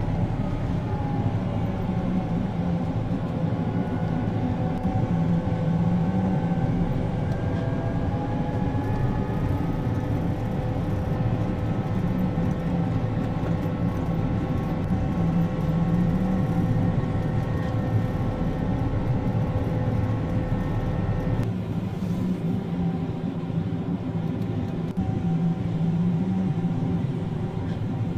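Vehicle engine running steadily with a low drone and a few higher whining tones, some gliding slowly in pitch. The sound changes abruptly about 21 seconds in, then carries on steadily.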